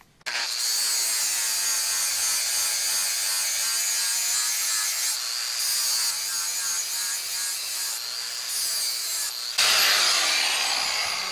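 Power grinder switching on and grinding steadily into steel, taking a thick old weld bead off a bench vise. It bites harder and gets louder near the end, then begins to die away.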